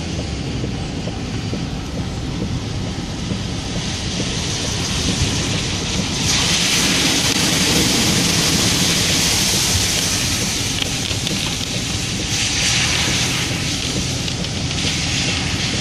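Steady engine and road rumble heard from inside a vehicle, with a loud rushing hiss of water spray from about six seconds in, lasting about four seconds, as the tyres drive through water flooding across the road. Two shorter splashes of spray follow near the end.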